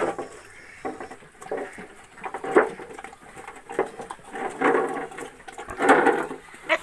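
Pigs grunting in a pen: a handful of short, rough grunts scattered through the few seconds, the longest about halfway through and about six seconds in.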